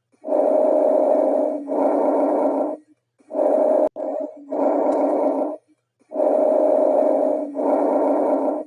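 Normal bronchovesicular breath sounds: about three breaths of air noise, with inspiration and expiration about equal in length and a short pause between them.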